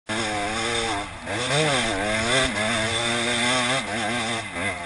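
Enduro motorcycle engine under load on a steep loose hill climb, the revs rising and falling repeatedly as the throttle is worked, with dips about a second in, at two seconds and near the end.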